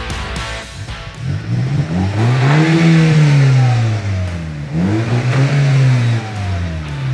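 Audi A4 2.0T's turbocharged two-litre engine, Stage 2 tuned, revved twice through an exhaust fitted with sport resonators in place of the stock mufflers. Each rev climbs to a peak and falls back.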